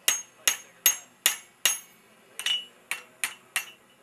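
Hand hammer striking a hand-held punch driven into a red-hot railroad spike on an anvil: nine sharp, ringing metal-on-metal clinks, about two and a half a second, with a short pause about two seconds in.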